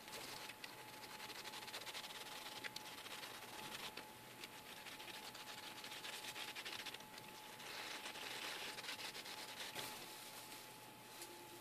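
A wet swab electrode rubbed and dabbed over a steel axe head during electrochemical etching makes a soft, scratchy hiss. The hiss swells and fades in several stretches and dies away after about ten seconds.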